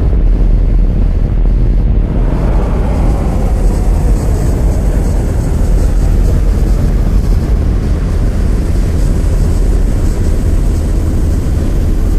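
Sci-fi mothership sound effect: a loud, steady low drone with a sweep falling slowly in pitch starting about two seconds in, and a faint thin high tone above it.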